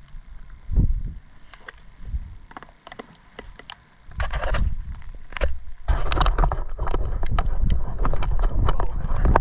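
Wind buffeting the microphone in a winter storm, a heavy low rumble from about six seconds in. Before that, scattered clicks and a short hiss just after four seconds.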